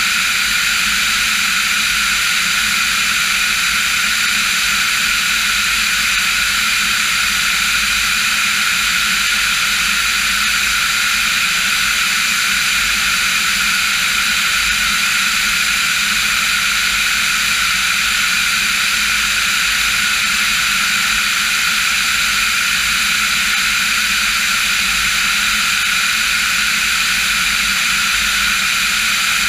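Engine and propeller noise of a Diamond DA-40 NG (Austro AE300 turbo-diesel) heard inside the cabin in steady flight: a loud, unchanging drone with several steady tones.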